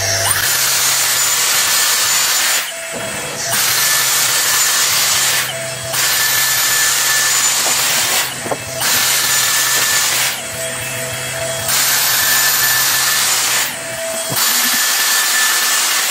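Dyson Airstraight wet-to-dry straightener blowing hot air through wet hair: a loud rush of air with a steady high motor whine. It drops away briefly about four times between passes down the hair, as the tool pauses off the hair and starts again on contact.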